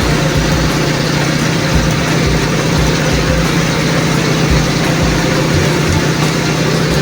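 Automatic girth-welding equipment running on a horizontal capping pass: a steady low hum with an even hiss over it, unchanging throughout.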